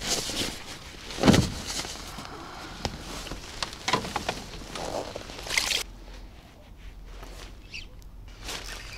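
Irregular knocks and rustling of handling noise, with a heavier thump about a second in and a few short scrapes around the middle; quieter in the last few seconds.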